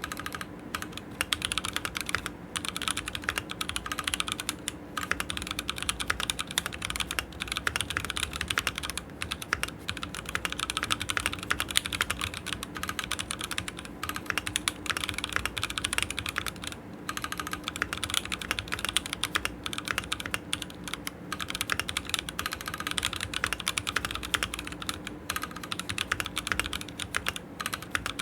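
Continuous fast typing on a Keychron Q6 mechanical keyboard with Gazzew Boba U4T tactile switches, a dense run of keystroke clicks with a few brief pauses.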